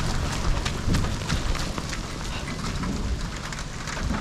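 Heavy rain falling, with many sharp drop hits close by and a steady low rumble underneath.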